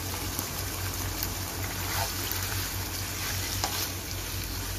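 Beef pieces sizzling and bubbling in their juices in a non-stick wok over a high flame, a steady hiss as the leftover water cooks off. A spatula stirring them gives a few light taps and scrapes.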